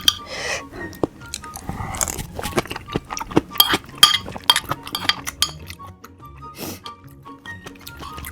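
Eating at close range: sharp clinks of utensils against dishes and wet mouth sounds, over light background music with short, soft notes.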